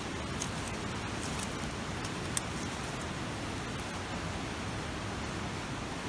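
A small fire of dry grass and lichen just catching, with a single sharp crackle about two and a half seconds in, over a steady hiss.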